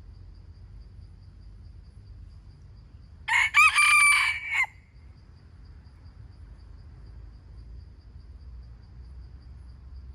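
A rooster crowing once, a single crow lasting about a second and a half, starting about three seconds in and ending in a held, level note.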